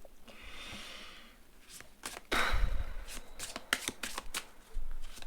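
A tarot deck shuffled by hand. Cards slide softly at first, then a louder rustle with a low thump a little after two seconds in, then a run of quick card clicks.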